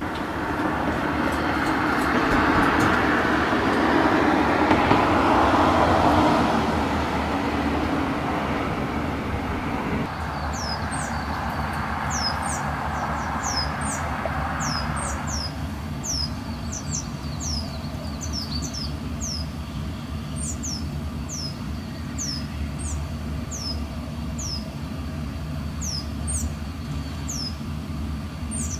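A loud rushing noise swells over the first few seconds and fades out about halfway through. From about a third of the way in, a small bird calls over and over with short, high chirps that drop in pitch, over a faint low steady hum.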